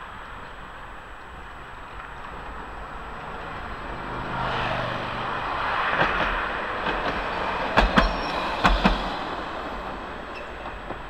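Vintage Milan Class 1500 'Peter Witt' tram passing on its track: running noise rising as it comes up and is loudest about six seconds in. Then two pairs of sharp clacks from its wheels crossing rail joints, over steady road traffic.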